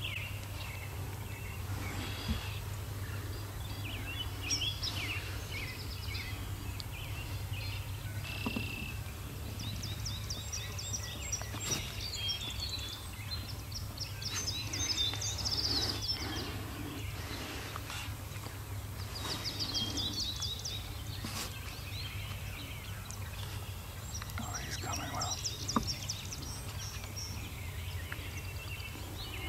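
Songbirds singing fast, trilled songs, several times over, above a steady low rumble of open-field background noise.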